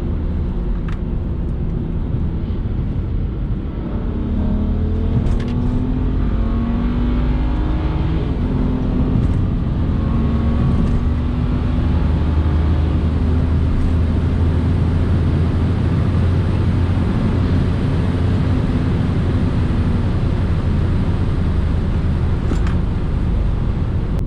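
BMW 335i's twin-turbocharged N54 inline-six, with full bolt-on modifications, pulling hard in third gear. The engine note climbs for a few seconds and then holds fairly steady under load.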